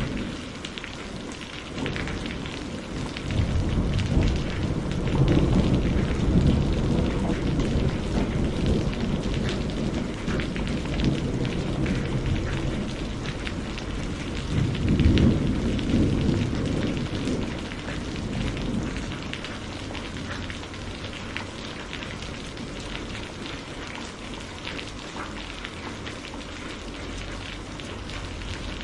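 Steady rain pattering on a surface during a thunderstorm, with low rolling thunder that swells a few seconds in and rumbles again around halfway through, then dies away.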